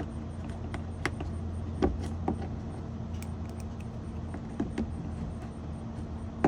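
Handling noise from car trim work: scattered light clicks and taps, about six of them, as plastic bumper clips and small parts are handled and pressed into place, over a steady low hum.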